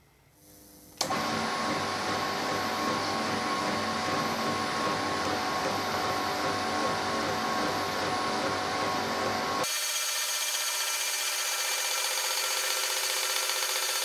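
Home-built gear shaper starting up about a second in: the motor driving its ram up and down and the stepper drives running steadily as the cutter shapes gear teeth. Near the end the sound abruptly turns thinner and higher with the low end gone, the machining sped up.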